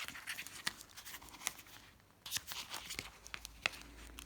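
Scissors cutting a page out of a decal sheet holder: paper crinkling and rustling with a run of short, sharp snips and crackles, pausing briefly about halfway through.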